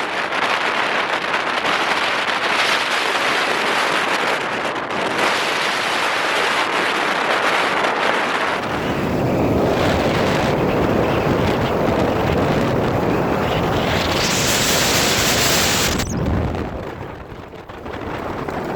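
Strong wind blowing hard over the microphone in gusts, a rushing roar with heavy low rumble from about nine seconds in. It breaks off abruptly about sixteen seconds in and dips before rising again.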